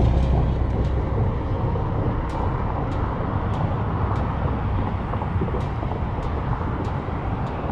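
Steady low outdoor rumble, heaviest in the bass, with a few faint ticks scattered through it.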